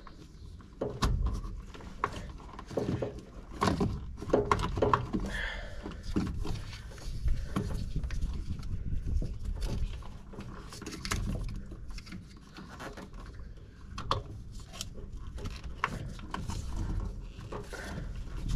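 A plastic 7-pin trailer-wiring plug and socket being handled and fitted together by hand, greased contacts freshly cleaned: irregular clicks, knocks and rubbing, over a low rumble.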